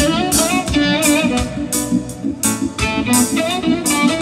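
Live reggae band playing an instrumental passage: a guitar line with bending notes over bass and drums, with regular cymbal and drum hits.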